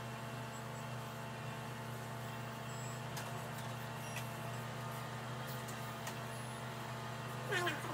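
Steady electrical hum of endoscopy equipment running, with a few faint ticks. A voice starts near the end.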